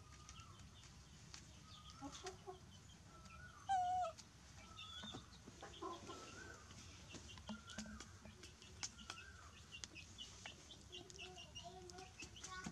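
Short animal calls repeated every second or so, with many high, brief cheeps among them and one louder call about four seconds in.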